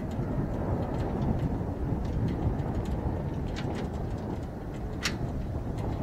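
Rumble of a Kawasaki T-4 jet trainer's twin turbofan engines as it climbs away after takeoff, mixed with heavy wind buffeting on the microphone. A sharp click comes about five seconds in.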